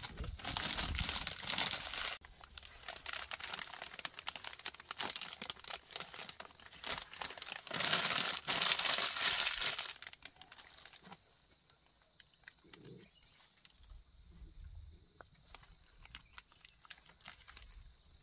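Plastic snack wrapper crinkling as it is handled and crumpled, in two loud spells (the first couple of seconds and again around eight to ten seconds in), then only light rustling.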